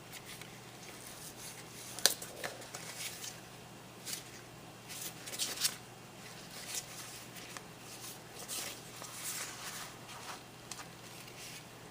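Faint rustling of cardstock and paper with scattered light clicks as a handmade paper photo folio is handled and its tags and pages are turned, with one sharp tap about two seconds in.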